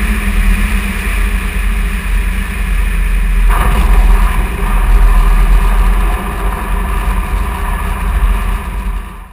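ICP Savannah light aircraft's engine and propeller running steadily as the plane rolls along on its wheels, with heavy wind rumble on the outside-mounted microphone. The sound grows brighter and somewhat louder about three and a half seconds in.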